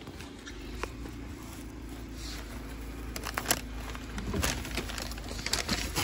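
Handling noise on a handheld phone's microphone: scattered rustles and a few sharp knocks, the loudest about halfway through and a cluster near the end, over a low steady rumble.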